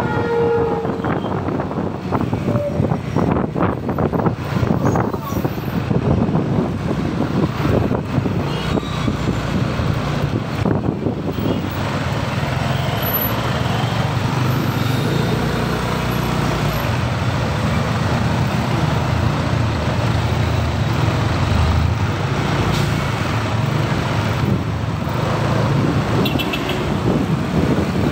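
Riding a motor scooter in town traffic: steady engine and road noise with the hum of surrounding vehicles. A vehicle horn ends just as the sound begins.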